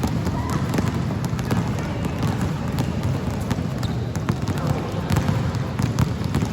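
Basketballs being dribbled on a court, an irregular stream of bounces from several balls at once, over a steady background of voices.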